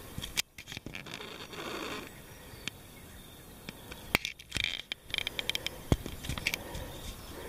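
Boots on a rocky mountain trail: footsteps scraping and clicking on stones and grit, uneven and irregular.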